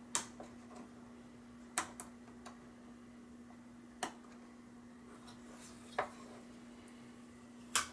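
A handful of sharp small clicks, a second or two apart, of fingernails and a plastic computer case fan being handled while the sticker on its hub is picked at, over a steady low hum.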